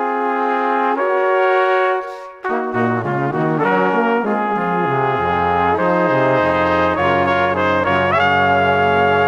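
Brass music: slow, sustained chords from trumpets and trombones. After a brief break a little over two seconds in, deeper low brass notes join beneath the melody.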